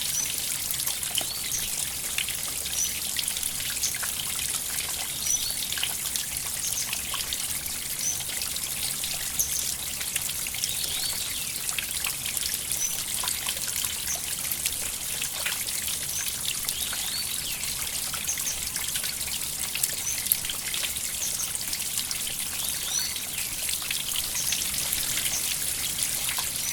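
River water trickling steadily, an even hiss with small bright plinks about every second.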